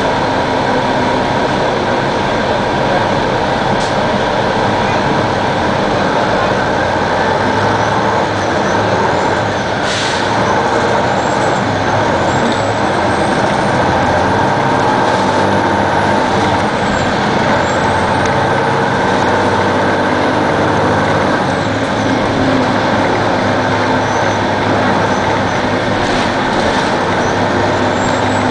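A 2002 Neoplan AN-460 articulated bus running on its Detroit Diesel Series 60 engine and Allison B500R automatic transmission. The engine drone is steady, with a steady whine and a high whine that rises and falls in pitch. There is a brief hiss about ten seconds in.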